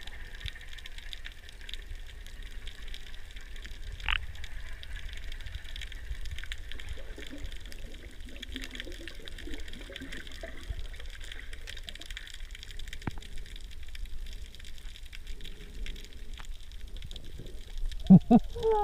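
Underwater ambience heard through a submerged camera: a steady low rumble and hiss of water with scattered faint ticks. Near the end come a few short, muffled voice-like sounds.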